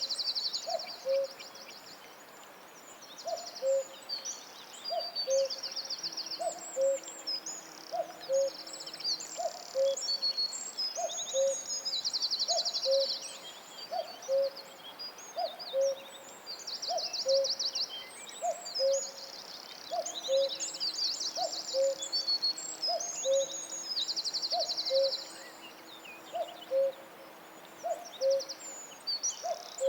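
Forest bird chorus: a short low hooting call repeats steadily, about once every second and a half, under bursts of rapid high-pitched trills and chirps from other birds.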